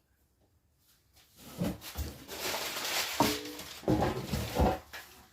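Rummaging through a box of household items: rustling with several knocks and thuds as objects are picked up and set down, starting about a second in.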